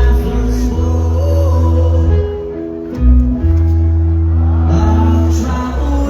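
Live punk rock band playing loud through a PA, with amplified electric guitar and heavy sustained bass notes under a male singer.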